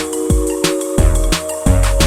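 Hip hop-style background music: a beat with deep bass and drum hits about three times a second under sustained synth chords.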